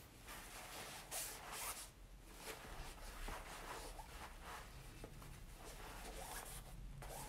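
Paper tissue wiping poured water off a waterproof fabric backpack: faint rubbing swishes in a string of short strokes, two stronger ones about a second in.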